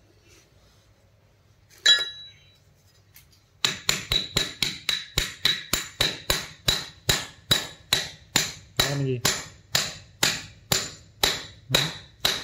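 Hammer tapping on a steel ball bearing held in the hand: one sharp metallic knock about two seconds in, then from about three and a half seconds a steady run of light blows, roughly two and a half a second, each with a short metallic ring.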